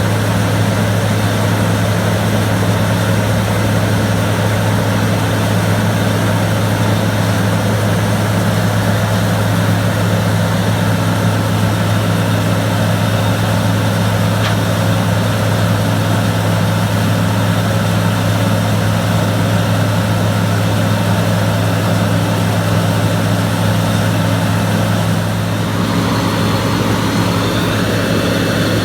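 Large diesel engine of farm harvest machinery running steadily, a loud low drone with a constant pitch.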